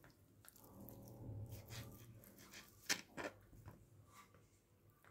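Faint knife work on a plastic cutting board as a block of soft paneer is cut into cubes: quiet squishy cutting and light taps of the blade, with two sharper knocks about three seconds in.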